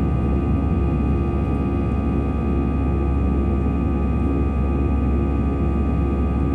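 Airbus A319 jet engines heard inside the cabin during the climb after take-off: a steady, heavy low rumble with faint steady whining tones over it.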